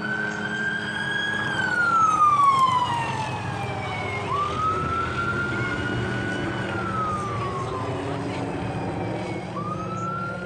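Police car siren in wail mode: the pitch sweeps up, holds high, then glides slowly down, over and over, about every four to five seconds.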